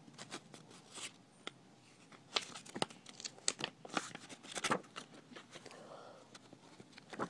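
Cookbook pages being turned and handled: irregular sharp paper crackles and flicks, thickest in the middle, then thinning out.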